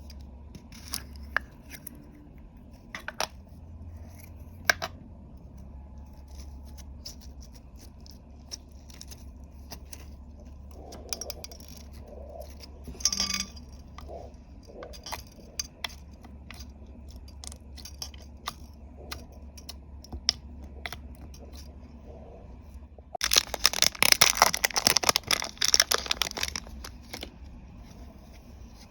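Slime being mixed and worked by hand with makeup and glitter, giving scattered sticky clicks and pops; near the end comes a few seconds of loud, rapid crackling.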